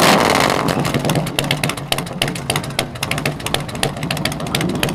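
Motorcycle engine running through chrome fishtail exhaust pipes: a short surge of revs right at the start, then settling to an idle of rapid, even exhaust pulses.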